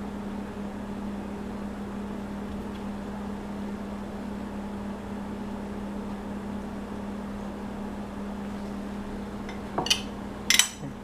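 Steady low hum of room noise, then a few sharp clinks of dishes or utensils near the end.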